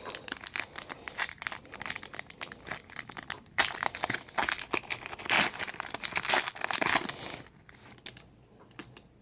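Foil trading-card packs crinkling and tearing as they are handled and ripped open, a dense crackle that dies away about seven and a half seconds in.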